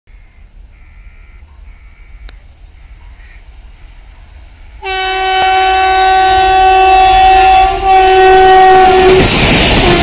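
Twin WAG7 electric locomotives at speed sound one long, steady horn blast at a single pitch, starting about halfway in and lasting about four seconds. Near the end it gives way to the loud rush of the locomotives' wheels on the rails as they pass close by.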